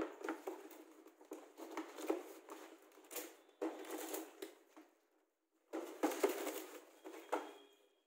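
Cardboard toy box being handled and turned over on a concrete floor: rustling, scraping and light knocks of the carton, with a short break about five seconds in.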